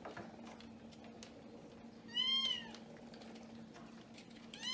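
Kitten meowing twice: one call about two seconds in and a second right at the end, each rising then falling in pitch.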